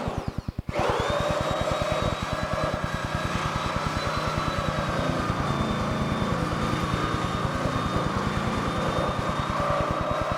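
Electric power tool starting up about a second in and running steadily, its motor whining up to a steady high pitch over a fast even pulsing, used in interior demolition.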